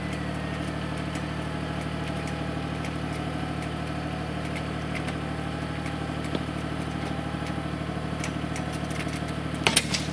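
John Deere 755 compact tractor's three-cylinder diesel engine running steadily under a faint, wavering high whine. A couple of sharp metallic knocks come near the end.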